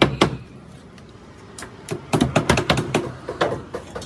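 Claw hammer driving nails into siding: two sharp blows at the start, then, from about two seconds in, a quick run of rapid taps.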